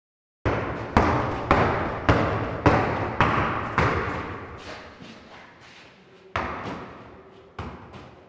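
A series of heavy thuds at a steady pace of about two a second, each ringing on in a large echoing room; they begin about half a second in and grow weaker and more scattered after about four seconds.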